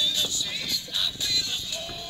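Music playing, with sharp high strokes repeating through it.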